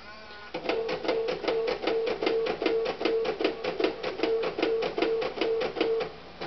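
Rogue DNA 4150 non-impact passport stamp printer printing an entry stamp. A short whir at the start, then a rapid, even ticking of about five strokes a second over a pulsing tone, stopping abruptly about six seconds in.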